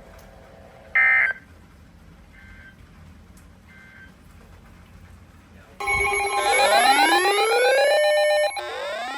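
Emergency alert radio sounds. A short burst of data tones comes about a second in, followed by two faint repeats, like the end-of-message signal after a weather radio warning. From about six seconds in, a loud electronic alert tone plays, made of rising sweeps over steady tones; it cuts off sharply near the end and then starts again more quietly.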